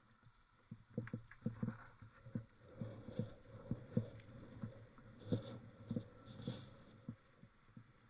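Irregular dull knocks and thumps, two or three a second, picked up through a mountain-biker's action camera.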